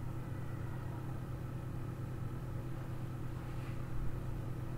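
Steady low hum of background noise, unchanging throughout, with a soft thump about four seconds in.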